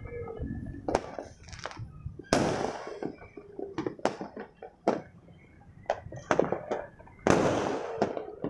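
Fireworks going off in many places at once: a scatter of sharp bangs and crackles, with two louder bangs that trail off, one about two seconds in and one about a second before the end.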